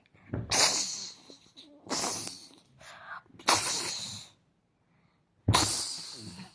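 Four loud sneezes, each a sudden burst that trails off, coming about a second and a half to two seconds apart.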